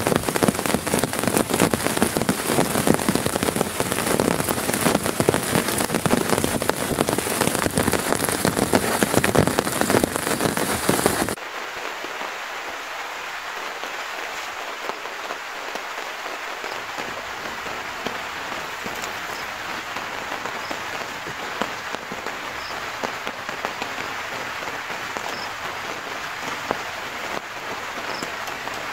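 Heavy rain falling on a nylon tarp stretched over a tent, a dense steady noise; about eleven seconds in it cuts abruptly to lighter, quieter rain that carries on evenly.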